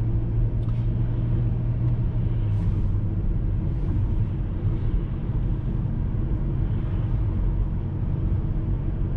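Steady road noise inside a moving car's cabin: engine and tyre rumble at cruising speed. A low hum steps down slightly in pitch about two and a half seconds in.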